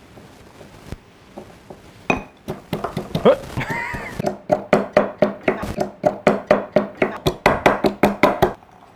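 Garlic being pounded with a wooden pestle in a small black mortar, a rapid run of clinking knocks. It begins sparsely, settles into about four strikes a second, then stops abruptly near the end.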